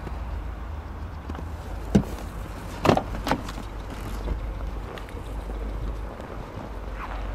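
A few sharp knocks and clicks from a car's body hardware being handled: one knock about two seconds in, then two close together about a second later and a lighter one after, over a steady low rumble.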